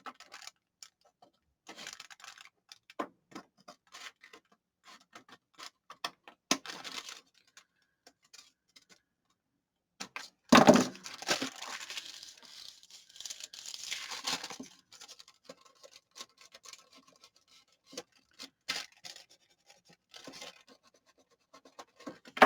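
Paper being handled at a craft desk: scattered rustles, taps and light scratches, and about ten seconds in a louder rasping stretch of paper lasting about four seconds.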